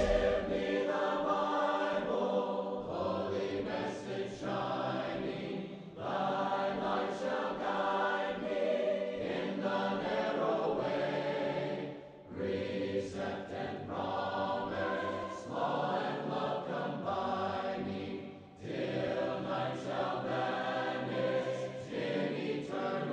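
Choir singing a cappella, in long held phrases with short breaks about every six seconds.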